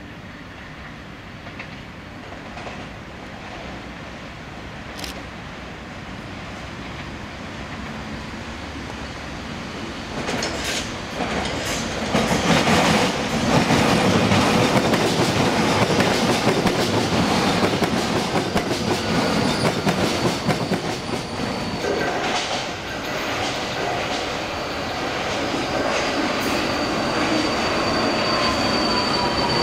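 Alstom Metropolis AM5-M2 metro trains: one approaches and passes close on open track, its wheels clacking over rail joints, loudest about halfway through. Near the end a train coming into the station gives an electric whine that falls in pitch as it slows, over a high steady tone.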